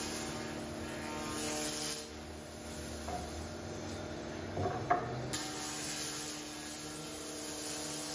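Felder AD 951 planer-thicknesser running while a chestnut board is jointed on edge: a steady machine hum, with cutting noise during two passes, one at the start and another from about five seconds in. A wooden knock sounds as the board is set back on the infeed table between the passes.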